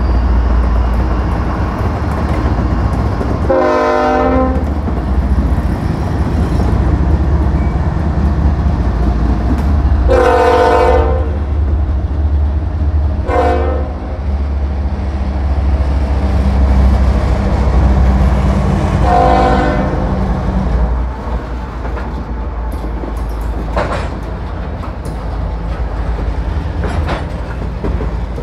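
CSX GE diesel locomotives working hard with a heavy drone as they pull a loaded coal train past, the lead unit's air horn sounding four blasts, long, long, short, long: the grade-crossing signal. In the last few seconds the drone eases and the coal hoppers roll by, with clicking from the wheels over rail joints.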